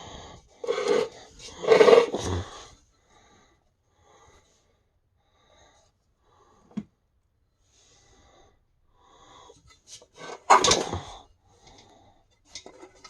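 Handling noise from an old metal table fan: irregular scraping, rubbing and knocking, loudest in the first couple of seconds and again about ten seconds in, with faint scrapes between. The fan is not running.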